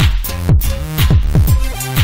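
Electronic dance music with a steady kick drum, about two beats a second, under pitched synth layers.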